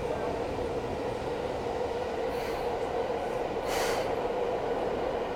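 Seibu commuter train pulling into the terminal platform: steady running noise with a held squeal from the wheels and brakes, and a short burst of air hiss about four seconds in.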